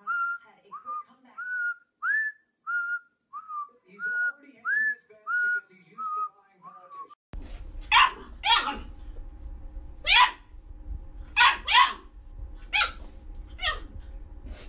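A run of short whistled notes, about two a second, each sliding up and then held. About seven seconds in it cuts abruptly to small dogs barking, about seven sharp barks in uneven bunches.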